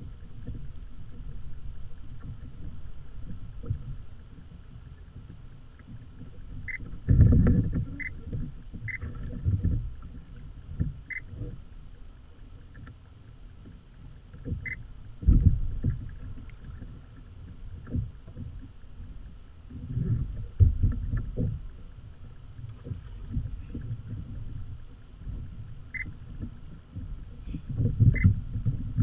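Water sloshing and knocking against a fishing kayak's hull in irregular low rumbles and thumps, with a few short, high chirps scattered through.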